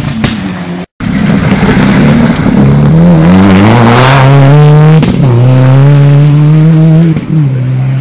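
Rally car engine at full throttle, its pitch climbing, then dropping sharply twice, about five and about seven seconds in, and holding steady after each drop. The sound cuts out completely for a moment just before one second in.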